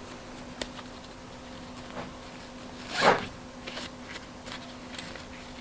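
Laptop backpack being handled while its shoulder straps are taken apart: a few light clicks and fabric rustling, with one short rasp about three seconds in. A faint steady hum runs underneath.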